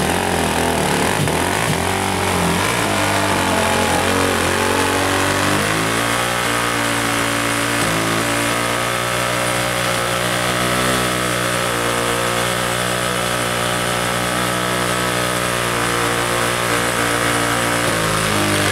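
ATV engines revving unevenly, then held at steady high revs from about six seconds in, with a step in pitch about two seconds later; the revs drop away near the end.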